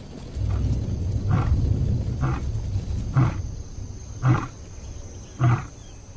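Lion roaring: a series of deep grunting calls about a second apart, the last few loudest.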